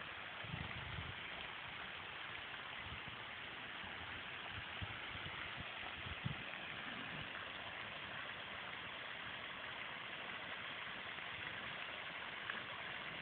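Steady hiss of outdoor background noise, with a few soft low thumps in the first half.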